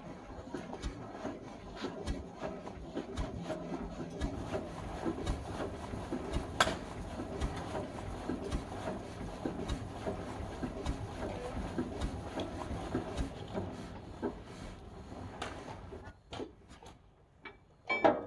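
Old tractor engine running with a dense, irregular mechanical clatter that dies away near the end.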